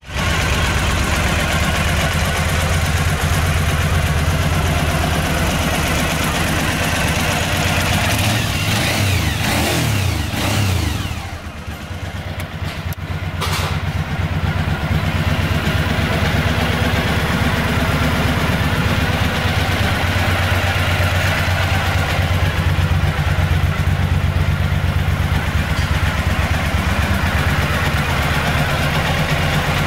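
Kawasaki KLV1000's V-twin engine idling steadily. About eight seconds in, the revs rise and fall for a few seconds before settling back to idle.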